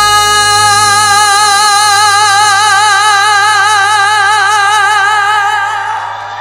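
Music from a Korean song: one long held note with strong vibrato over the backing, fading away near the end.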